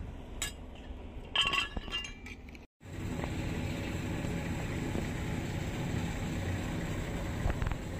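A few sharp, ringing clinks of hard fired bricks knocked together as they are handled. About three seconds in, the sound cuts off abruptly and is replaced by a steady, low rumbling noise.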